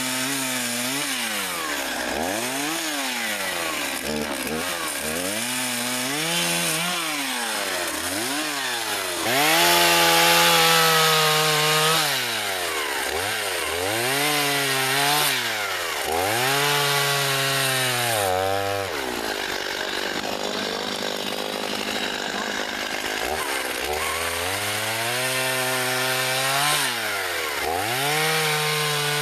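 1987 Husqvarna 50 Special two-stroke chainsaw cutting branches and a log, its engine pitch rising and falling again and again as the throttle opens and the chain bites into the wood. Past the middle it drops to idle for a few seconds, then revs and cuts again.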